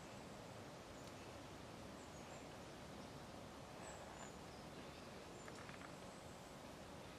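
Quiet woodland ambience: a steady faint hiss with a few brief, high bird chirps scattered through it.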